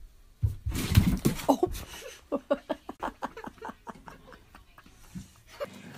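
A thump and a short voiced sound about half a second in, then a person laughing in a long run of quick, short bursts, about four a second.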